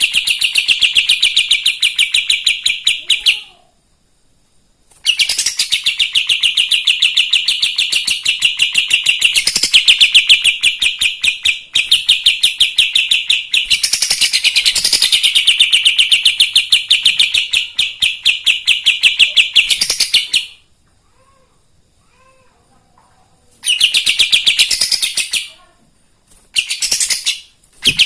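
Kapas tembak songbird singing in long runs of very fast, rapidly repeated high notes. The runs are broken by short pauses: a few seconds of song, a pause, a long run of about fifteen seconds, then shorter runs near the end. It is a loud, full-voiced song used as a lure to provoke other birds.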